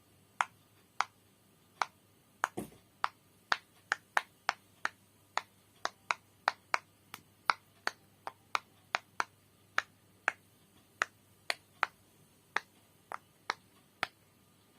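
Pop It silicone fidget toy bubbles being pressed one after another: about thirty sharp popping clicks at an uneven pace of roughly two a second, one of them with a duller thump about two and a half seconds in.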